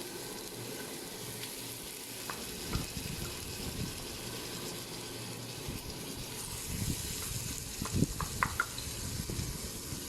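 Blended spice paste sizzling as it fries in hot oil, with a few light knocks of a utensil against the pan, a couple near the start and a cluster near the end.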